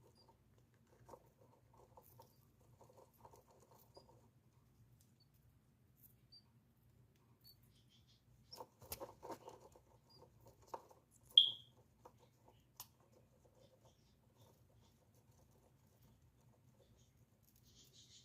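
Faint scratching and rustling of small pet animals moving about, with one short, high chirp about eleven seconds in, over a steady low hum.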